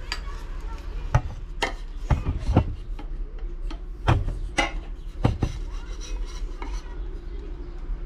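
Handling noises: rubbing with about seven sharp knocks spread through, over a steady low hum.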